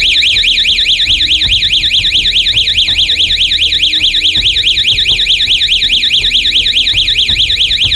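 12-volt electronic alarm siren with a red strobe light sounding continuously: a loud, piercing warble whose pitch sweeps up and down several times a second.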